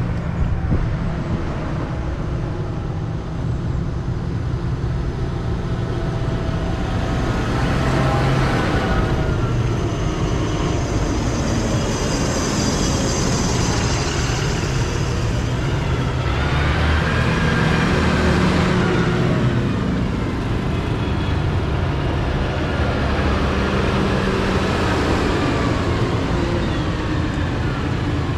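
A line of tractors driving past one after another, their diesel engines running steadily and swelling in loudness as each one comes close, then easing as it goes by.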